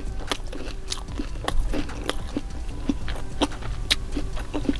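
Close-miked chewing of crispy fried chicken taquitos: a run of irregular crunches and clicks.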